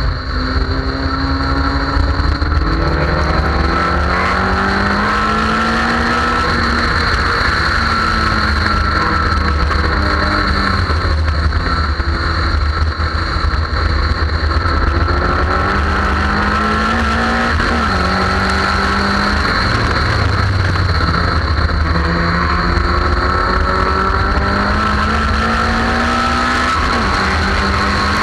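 Car engine heard from onboard while lapping a racetrack, its pitch climbing under acceleration and falling back at gear changes and lifts for corners, several times over. Heavy wind rumble on the microphone underneath.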